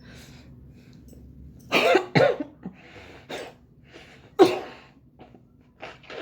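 A person sneezing and coughing while a pen tickles the nose. There are two loud, explosive bursts close together about two seconds in, a third sharp one a little past four seconds, and smaller bursts of breath in between and near the end.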